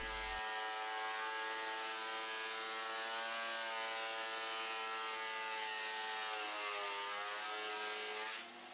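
Benchtop thickness planer running, a steady motor whine whose pitch dips briefly late on, as boards are fed through to bring them to an exact thickness.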